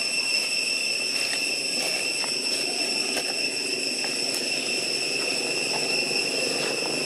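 Steady, high-pitched insect drone of cicadas, one unbroken buzzing tone, over a low steady background rumble.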